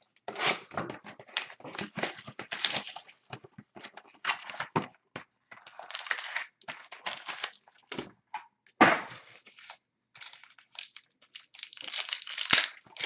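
Cardboard trading-card boxes (2016-17 Totally Certified basketball) being handled and opened by hand: irregular scraping, rustling and crinkling of cardboard and packaging in quick clusters with short pauses.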